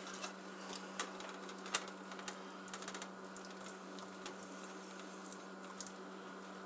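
Faint scattered clicks and taps of a metal spoon scooping spinach dip from its container and spreading it on a slice of beef on a plate, the sharpest about one and two seconds in, over a steady low hum.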